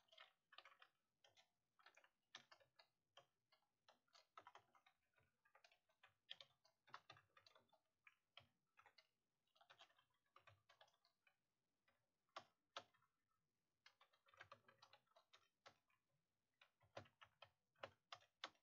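Faint, irregular keystrokes on a computer keyboard: single short clicks, sometimes in little runs, with pauses between.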